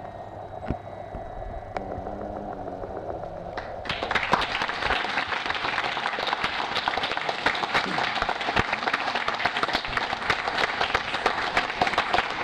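Audience applauding, breaking out suddenly about four seconds in and going on as dense clapping.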